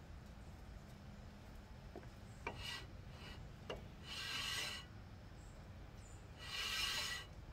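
Two short metal-on-metal scraping rubs at a truck's rear brake rotor and hub, each under a second and a couple of seconds apart. A few light metallic clicks come before them.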